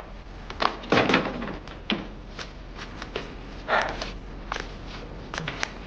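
Scattered short knocks, clicks and rustles, about ten in all, irregularly spaced.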